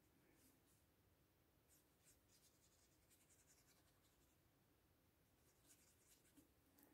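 Faint, soft scratching of a fine watercolour brush stroking across paper, in short irregular strokes.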